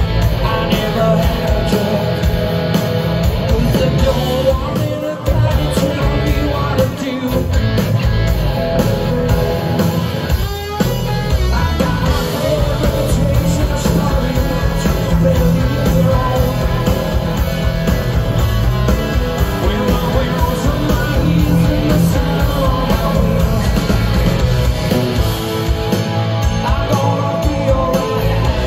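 Live rock band playing, with a male lead singer over electric guitar and drums.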